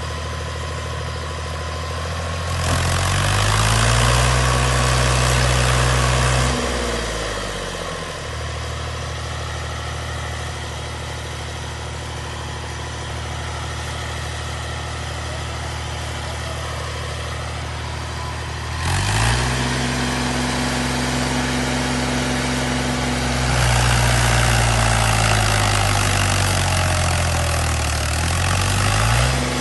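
Heavy farm machine's engine idling, then revving up and holding its raised speed for several seconds before dropping back. It revs up again about two-thirds of the way through and stays up, with a brief dip near the end.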